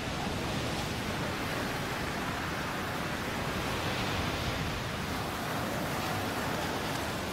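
Surf washing over a beach: a steady rush of breaking, churning waves, swelling a little in the middle.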